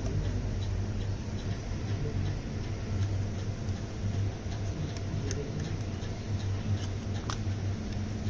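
Yamaha motorcycle engine idling steadily with a low, even pulse, and a few light clicks about five and seven seconds in.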